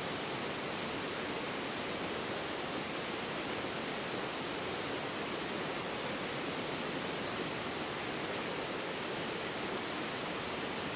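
River water rushing, a steady even hiss with no change in level.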